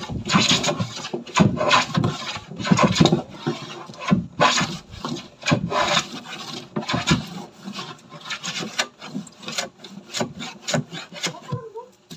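Hand plane shaving the plywood edge of a cabinet, in repeated push strokes. The strokes come about one a second at first, then grow shorter and quicker in the second half, and stop just before the end.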